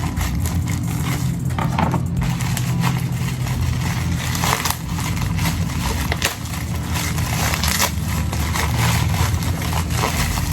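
Plastic packaging crinkling and scraping in irregular bursts as a pet grooming brush is unwrapped, over a steady low hum.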